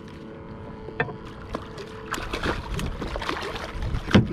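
Water lapping and splashing around a fishing kayak, with small clicks and knocks from the rod and reel as a hooked fish is brought alongside. Near the end the fish thrashes at the surface and there is a loud knock as it is gaffed beside the hull.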